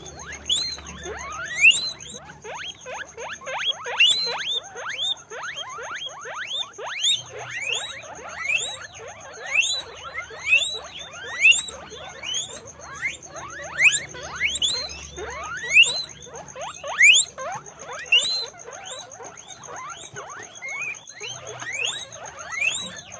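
Several guinea pigs wheeking: shrill, steeply rising squeals that overlap one another, about two a second, with no let-up.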